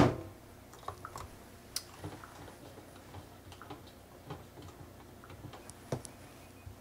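A sharp click, then a run of faint, irregular plastic ticks as the agitator rod turns the film reels inside an open developing tank filled with stabilizer.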